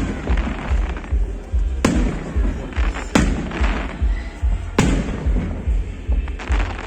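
Fireworks shells bursting, a sharp bang every one to two seconds over a constant low rumble.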